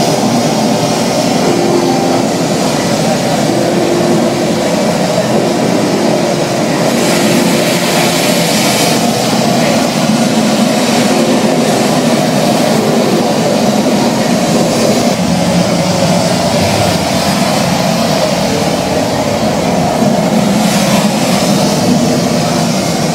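Recorded ocean surf, a steady loud roar of breaking waves that swells up twice, once about a third of the way in and once near the end.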